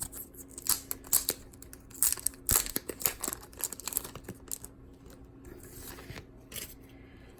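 Packaging being torn and crinkled by hand as toploaded trading cards are unwrapped: a run of sharp tearing and crackling rustles that thins out to quieter handling near the end.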